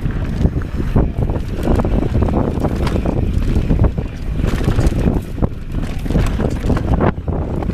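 Wind buffeting the microphone of a handlebar-mounted camera on a mountain bike riding fast down dirt singletrack, over a steady rumble from the tyres on the trail. Frequent irregular knocks and clatters come from the bike jolting over bumps.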